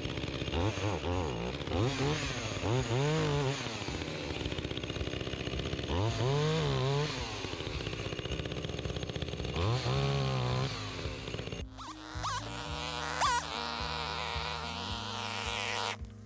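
Two-stroke chainsaw revving up and dropping back several times as it cuts firewood logs into rounds. Each rev rises and falls in pitch. About three-quarters of the way through, the saw stops and music with steady notes takes over.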